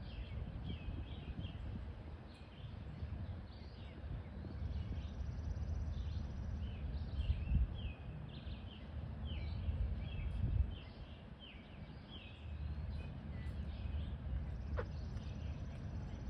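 Birds calling, a steady stream of short chirps and notes, over a low rumble.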